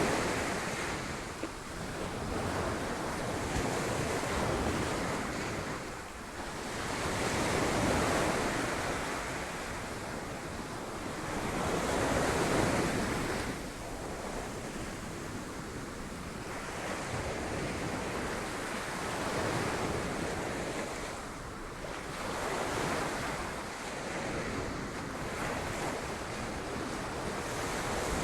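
Sea waves breaking on rocks, the surf swelling and falling back every few seconds, with wind on the microphone.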